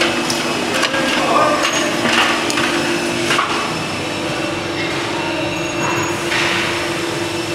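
Molten aluminium being poured into a closed hand-operated permanent mould (Kokille): light metallic knocks and scraping with short swishes, over a steady machinery hum.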